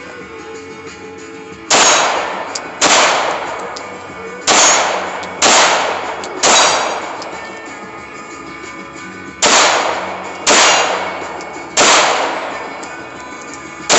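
Eight gunshots spaced about a second apart, in a pair and two groups of three, each a sharp crack that rings and fades over about a second. Faint background music runs underneath.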